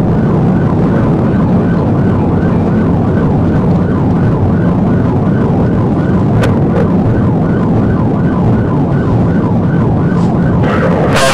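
Police patrol car siren in a rapid yelp, rising sweeps repeating about three times a second, heard over loud steady road and engine rumble from the pursuing car at highway speed.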